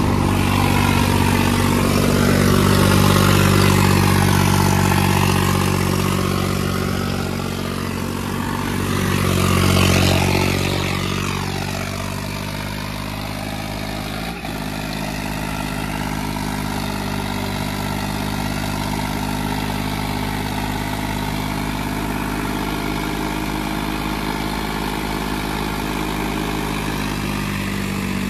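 Diesel tractor engines running hard under pulling load. The sound swells twice in the first ten seconds, then settles to steadier, slightly lower running from about twelve seconds in.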